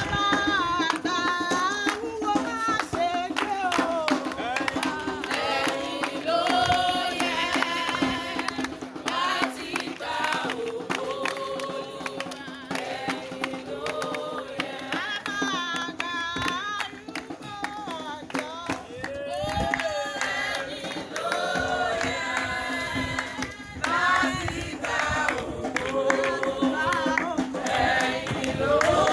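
A group of people singing together in sung phrases.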